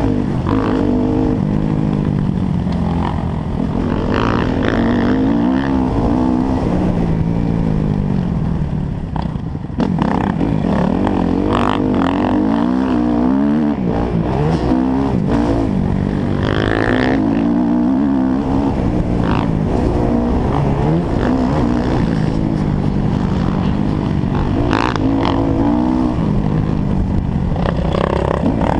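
A motocross bike's engine heard from on board, revving up and down over and over as it is ridden through the gears around a dirt track. The throttle eases off briefly about nine seconds in, then the engine picks up sharply again.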